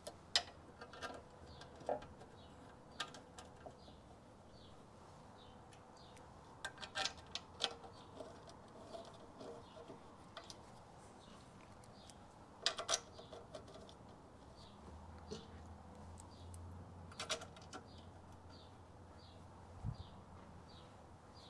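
Sparse light clicks and knocks of metal motorcycle parts and hand tools being handled during assembly, in clusters, with a single low thud near the end. Under them a faint short high chirp repeats every half second or so.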